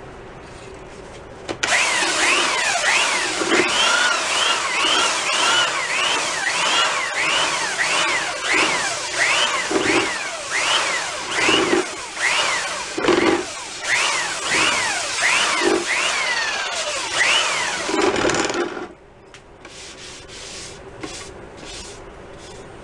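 Makita 3x21 belt sander sanding the bare wooden shell of a vintage snare drum. It starts about a second and a half in and runs steadily, its pitch rising and falling about every 0.7 seconds as it is worked over the curved shell. It cuts off near the end.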